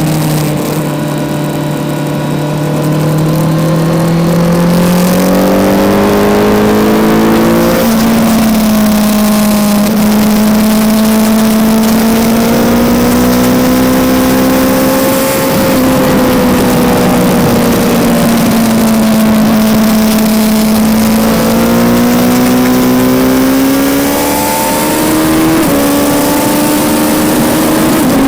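Kawasaki Z900's inline-four engine running at high revs under hard acceleration, its pitch climbing steadily and broken by quick upshifts about eight seconds in and again near the end.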